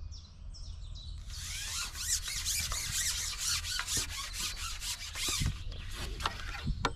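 Small birds chirping, then a rasping, rubbing sound for about three and a half seconds, trailing off into a few light clicks.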